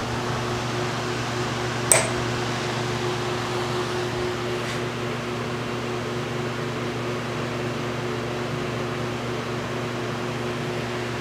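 Steady motor or fan hum in a machine shop, with one sharp click about two seconds in and a fainter one a few seconds later.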